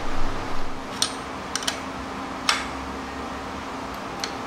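A steel lifting chain clinking against an engine lift plate as it is hooked up: a handful of light, sharp metallic clicks spaced irregularly over a steady low hum.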